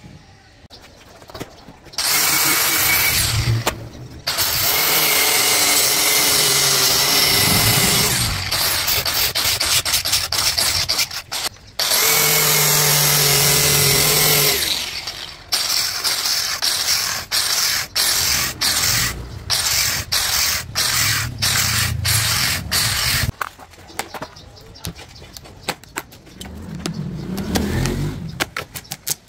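Handheld power tool running in long, loud runs with a steady whine, then switched on and off in many short bursts, about two a second, before it stops.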